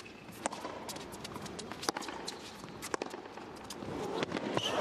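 Tennis rally on an indoor hard court: sharp racket-on-ball hits about every second or so. Crowd applause begins to swell near the end.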